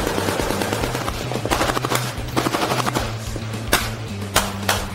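Machine-gun fire from a warship's deck guns: irregular shots and short bursts, with background music underneath.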